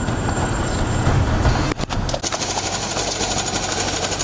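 A vehicle engine's low rumble. It breaks off just before two seconds in, and a fast, even mechanical rattle follows.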